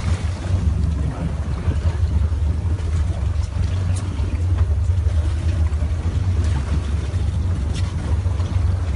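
Steady low rumble of a boat under way, with wind buffeting the microphone.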